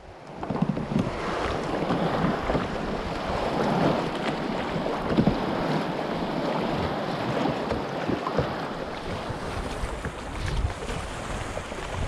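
Wind buffeting the microphone over small lake waves lapping and splashing against a plastic sit-on-top kayak hull and the shore rocks, gusting up and down after fading in at the start.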